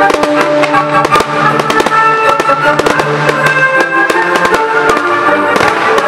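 Rapid firework bangs and pops from shells and comets, many each second, over film-theme music that plays throughout.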